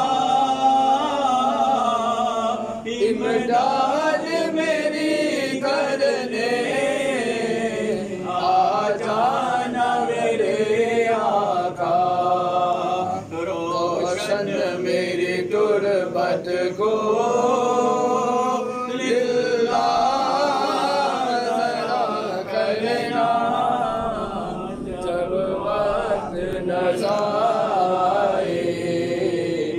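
A man's voice chanting a melodic Islamic prayer of supplication, with long drawn-out notes and short pauses for breath.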